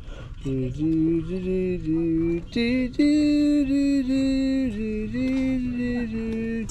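A slow melody of long, steady held notes stepping from pitch to pitch, with a short break at the start and a louder passage from about three seconds in.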